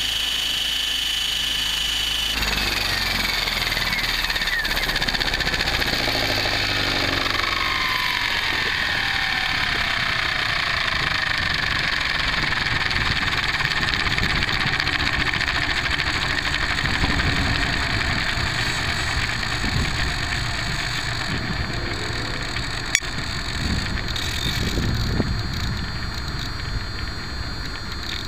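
Align T-Rex 700E electric RC helicopter spooling down: after the motor stops about two seconds in, the rotor and drivetrain whine falls steadily in pitch over about fifteen seconds as the blades slow. A single sharp click comes near the end.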